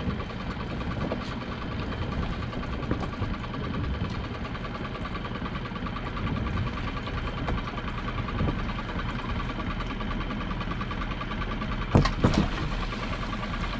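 A small boat's engine idling steadily. About twelve seconds in come a couple of short knocks as a crab pot is hauled up against the boat's side.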